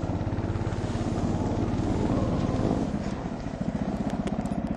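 Husky mini snowmobile's engine running as the machine drives through snow, with a steady rapid firing pulse; the engine note drops briefly about three seconds in and then picks back up.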